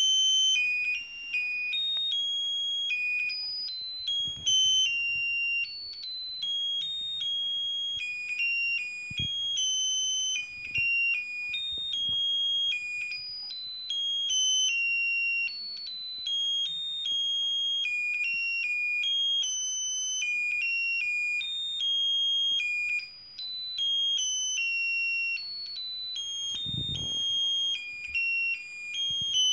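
Tinny electronic tune played as a quick run of single high beeping notes, one note at a time, stepping up and down.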